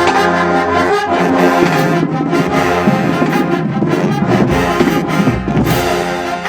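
A marching band's brass section playing loud, full chords.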